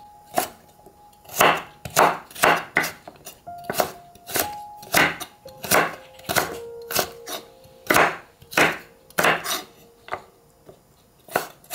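Kitchen knife julienning a carrot on a wooden cutting board: sharp knocks of the blade striking the board, about two a second and unevenly spaced, with a short pause near the end.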